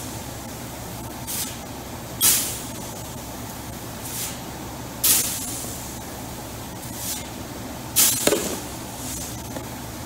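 Steel scoop shovel digging into and tossing loose wheat, making several hissing swishes of grain, the loudest about every three seconds. A steady low hum from the 5-inch unloading auger runs underneath.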